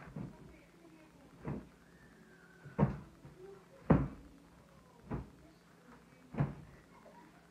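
Six soft thumps about one a second, the loudest near the middle, as clothes and a pillow are dropped and pressed onto a bed while it is being made up.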